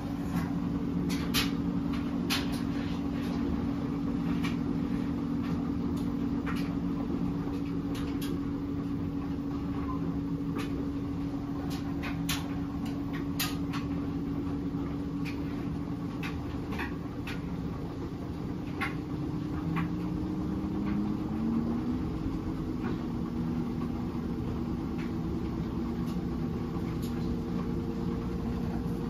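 LG WM3400CW front-load washer spinning its drum fast in an intermittent spin. The direct-drive motor and drum give a steady hum with scattered light clicks, and a short rising whine about two-thirds through as the speed changes.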